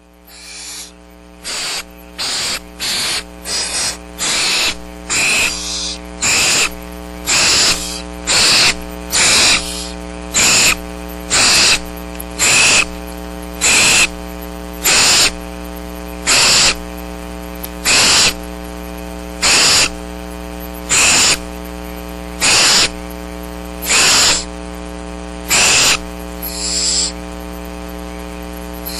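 Barn owl owlets giving repeated hissing food-begging calls, quick and overlapping at first, then settling to about one every second and a half. A steady electrical hum runs underneath.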